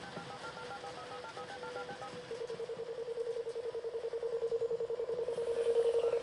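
Touch-tone telephone dialing: about a dozen quick two-tone keypad beeps over a steady line tone. After about two seconds this gives way to a fast-pulsing tone at the same pitch that grows steadily louder.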